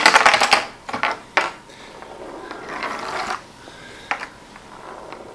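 Homemade spool tractor, a thread spool driven by a wound rubber band with a bamboo skewer arm, unwinding on a slick wooden tabletop: a loud, fast clicking rattle in the first half-second, then a few separate knocks and a softer scraping. The table is too slick for the spool to grip, so it slips rather than driving forward.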